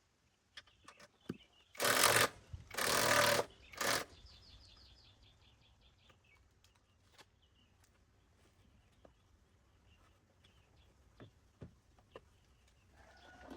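Three short, loud bursts of hissing noise about a second apart, followed by a brief run of rapid high-pitched ticks and then scattered light clicks and taps.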